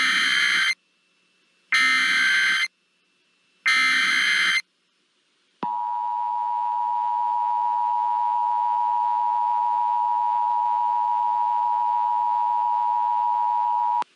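Emergency Alert System broadcast tones. First come three short bursts of warbling data tones (the SAME header), about two seconds apart. Then, about five and a half seconds in, the two-tone attention signal starts: a steady, piercing dual tone held for about eight seconds before it cuts off.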